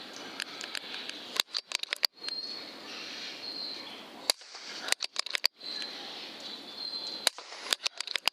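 Three clusters of sharp clicks and knocks a few seconds apart, over a steady night background with high insect chirps.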